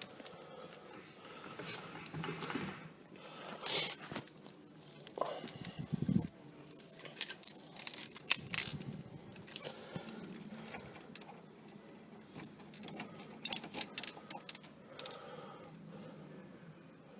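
Car keys jangling on their ring in irregular bursts of light metallic clinks, with a dull knock about six seconds in.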